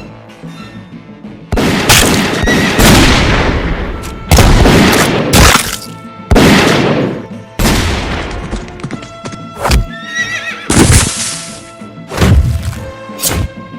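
Sound-effect montage: a run of loud, sudden bangs, each fading out over about a second, with a horse whinnying about ten seconds in, over music.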